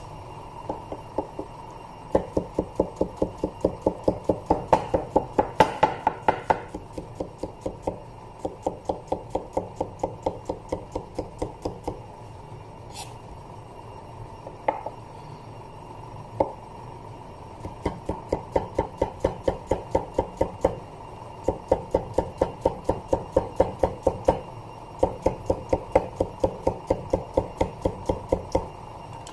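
Kitchen knife rapidly slicing a cucumber into thin rounds on a wooden cutting board, each stroke knocking the board, about four a second. The cutting runs in several long bursts, with a pause of a few seconds in the middle.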